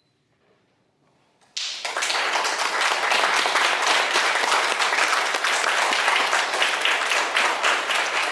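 Near silence, then an audience starts clapping suddenly about a second and a half in, a dense, steady applause of many hands.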